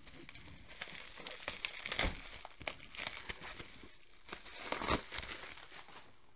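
Packaging being opened and handled by hand: rustling and scraping with sharp clicks, loudest in two bursts about two and five seconds in.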